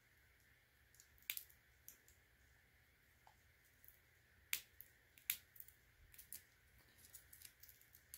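A handful of faint, sharp clicks and snips, irregularly spaced, from small hand snips cutting away high-temperature tape on a 3D printer's thermistor wire harness; otherwise near silence.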